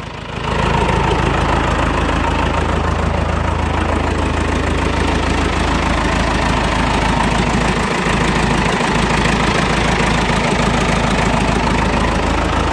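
Diesel engine of an old International backhoe idling steadily as it warms up after a cold start.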